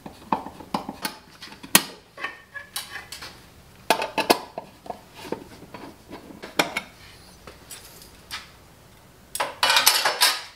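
Screwdriver and a steel blank cover plate on a metal electrical box: scattered metal clicks and scrapes as the cover screws are backed out. Near the end comes a louder stretch of metal scraping as the plate comes off.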